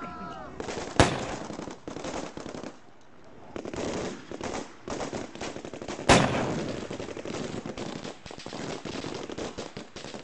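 Gunfire in a firefight: two loud, sharp shots, about a second in and about six seconds in, each trailing off in an echo, amid rapid, dense crackling of further shots and bursts.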